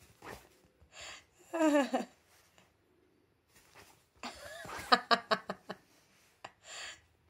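Short rustles of fingers scratching a fabric blanket, with laughter-like voice sounds between them: one falling sound about a second and a half in, and a run of clicky, chuckling pulses from about four seconds in.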